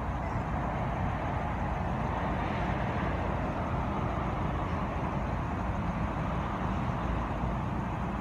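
Steady rumble and hiss of road traffic, even throughout with no distinct events.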